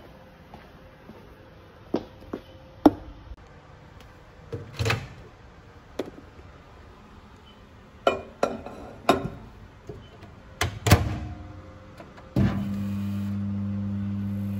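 Sharp clicks and knocks as a plastic food container and a microwave door are handled. About twelve seconds in, a dial-timer microwave oven starts and runs with a steady low hum.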